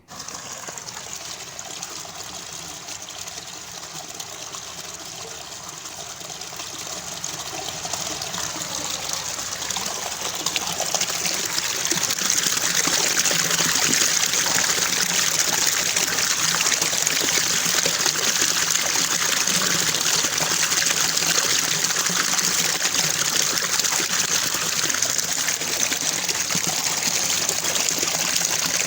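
Rushing water, heard as a steady hiss. It grows louder over a few seconds about a third of the way in, then holds steady.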